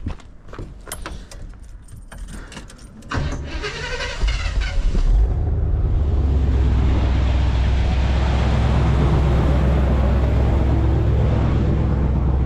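Car keys jingling and clicking, then about three seconds in the starter cranks for a couple of seconds and the engine fires. It settles into a loud, steady, deep idle.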